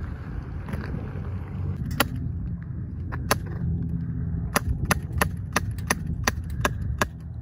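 A handheld pistol fired repeatedly: about a dozen sharp cracks, the first about two seconds in, then coming faster and more irregularly toward the end. Wind rumbles on the microphone throughout.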